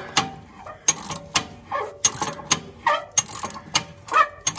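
Ratchet wrench clicking in short, irregular strokes, about two a second, as it works on the 19 mm bolt holding the riding mower's front deck hanger arm.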